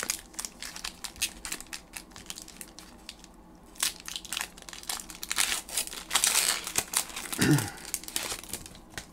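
Foil Pokémon booster pack wrapper crinkling and crackling in the hands as it is torn open, in irregular rustles that grow loudest a little past the middle.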